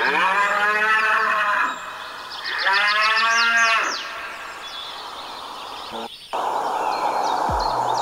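Cattle mooing twice: two long calls, each rising and then falling in pitch, with a short pause between, while small birds chirp faintly above them. About six seconds in the sound drops out for a moment, and a steady rushing noise follows.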